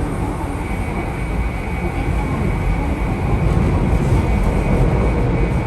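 Keikyu train running, dominated by a loud, deep growl from the traction drive of its car 5, with a steady rumble that swells a little past the middle.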